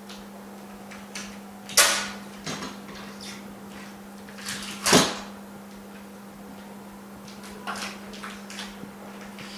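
Sharp clicks and knocks of tools and parts being handled on a workbench, the two loudest about two and five seconds in, with smaller taps between, over a steady machine hum.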